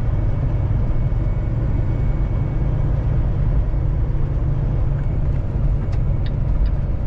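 Steady low drone inside the cab of a Kenworth semi-truck on the road: engine and road noise.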